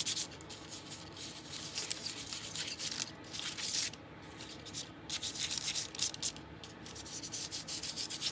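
Fingers rubbing a gold rub back and forth over a crinkled, gesso-coated paper page: a dry, papery swishing in irregular strokes.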